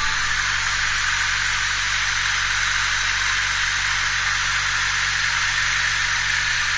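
1998 Honda Civic DX's four-cylinder engine idling steadily under a continuous even hiss, just after a ram air intake has been fitted.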